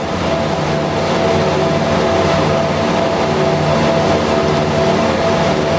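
BAe Jetstream 31's twin Garrett TPE331 turboprop engines running at low power while the aircraft taxis, heard from inside the cabin: a loud, steady drone with a constant whine over it.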